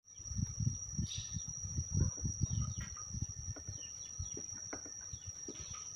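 Birds chirping, with irregular low thumps that are the loudest sound and a steady high-pitched whine throughout.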